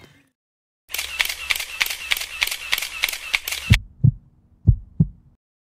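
About three seconds of even ticking, roughly three ticks a second, over a hiss with a high ringing tone. It stops suddenly and gives way to two pairs of deep thumps like a heartbeat, after which the sound cuts off.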